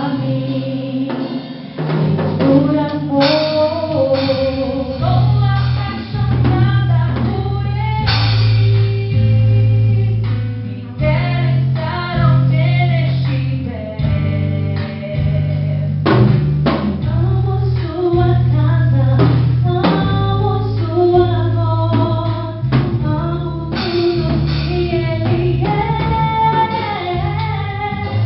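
Music: a song with singing over drums and a steady bass line.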